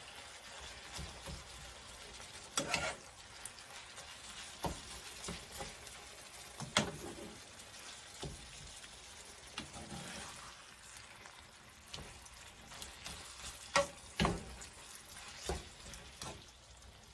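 Ground beef and chopped onion sizzling in a skillet while a fork stirs and breaks them up, with scattered scrapes and several sharp clicks of the fork against the pan.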